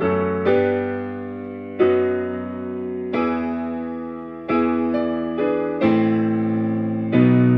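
Slow piano music: sustained chords struck about every second or so, each left to ring and fade.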